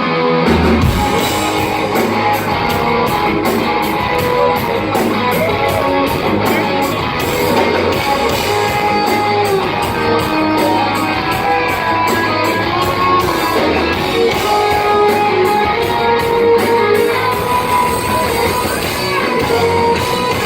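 Live heavy metal band playing an instrumental passage: electric guitar over drums, with a steady repeating cymbal beat.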